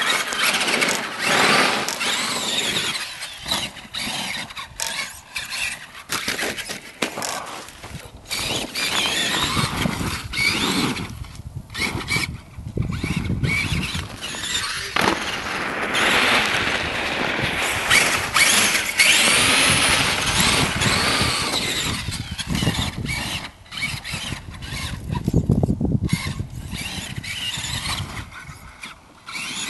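Traxxas Summit RC truck's electric motor and gearbox whining, rising and falling in pitch with the throttle and dropping off briefly several times, with the tyres spinning on snow and ice.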